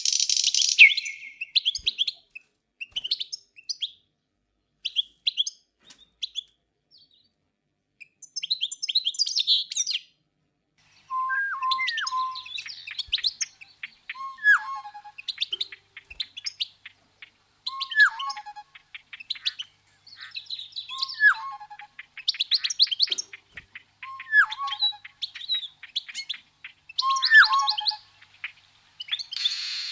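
Several songbirds chirping and twittering in quick high notes, with short pauses. From about a third of the way in, one bird repeats a short, lower two-note call, a quick note sliding down to a lower one, about every three seconds.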